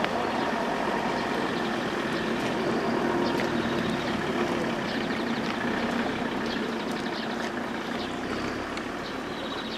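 Steady rushing of river water, the current pouring into a swirling eddy. It eases off a little near the end.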